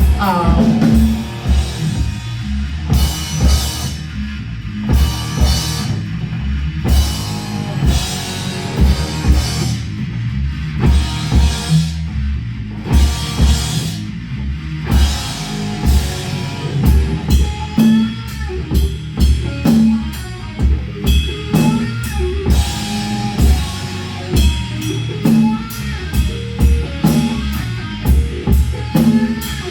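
Live rock band playing an instrumental passage: a drum kit with a steady driving kick beat, with electric guitar and bass over it.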